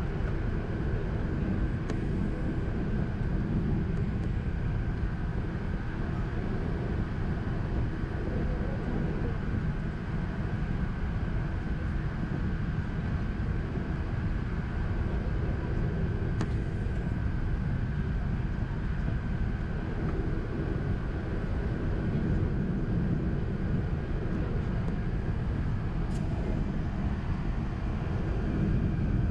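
Steady cabin noise inside an Airbus A380 in flight: a constant low rush of engine and airflow noise with a faint steady hum. A few faint ticks come through about 2, 16 and 26 seconds in.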